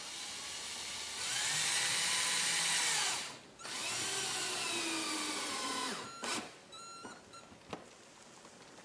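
Cordless drill/driver driving the top mounting screw of a wall control button into pegboard. The motor whirs in two runs of about two seconds each with a short break between, and its pitch falls as the second run slows under load. A few light clicks follow.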